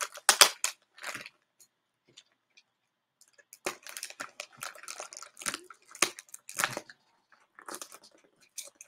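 A mailer package being opened by hand: after a short quiet spell, a run of ripping and crinkling of its packaging from about three and a half seconds in, with a few more rustles near the end.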